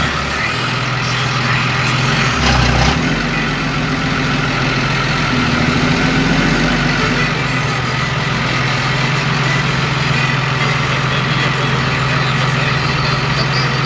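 An engine running steadily, with a brief low thud about two and a half seconds in.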